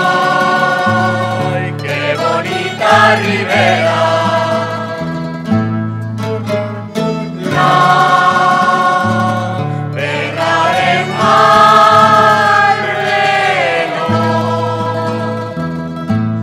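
A rondalla of guitars, bandurria-type lutes and a violin playing a popular song while a mixed choir sings long held chords over the guitars' plucked bass line.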